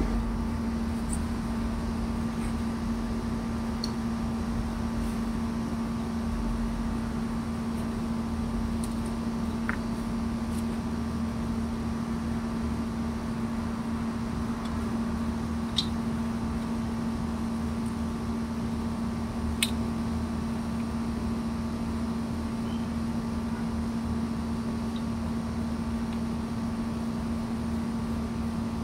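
Outdoor air-conditioner condenser unit running with a steady hum, and a few faint clicks along the way.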